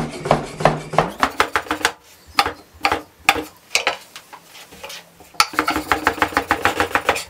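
Chef's knife chopping soft eggplant flesh on a wooden cutting board, each stroke a sharp knock on the wood. The strokes come in short runs with a pause near the middle, then a quick, even run of about six strokes a second near the end.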